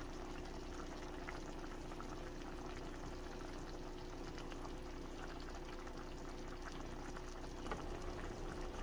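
Chicken pastel's creamy mushroom sauce simmering in a pan, with faint bubbling and soft pops over a steady low hum.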